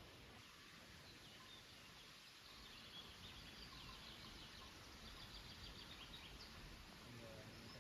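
Faint songbird chirping: runs of short high notes over a low outdoor background hum.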